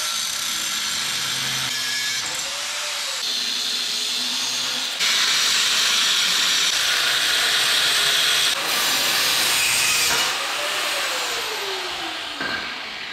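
Power tool with an abrasive cutoff wheel grinding through the rusted steel tubing of a truck ladder rack, a steady hissing grind whose motor note sags and recovers a few times under load. It gets louder from about five seconds in until about ten seconds in, then eases off and stops just before the end.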